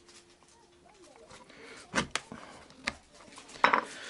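Sharp taps of a small hammer on an awl punching holes through a leather knife sheath: three quick knocks in the second half, then a louder one near the end.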